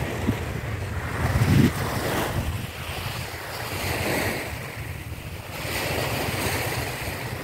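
Small sea waves washing onto a sandy beach, the rush swelling and easing, with wind buffeting the microphone in a low rumble and one louder gust about a second and a half in.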